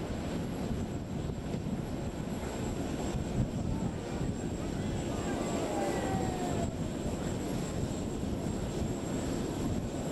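Steady jet-aircraft noise on an airport apron: an even, unbroken rumble and hiss from a parked airliner.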